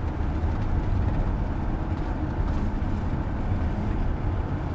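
U-Haul moving truck driving along, its engine and road noise a steady low rumble heard from inside the cab.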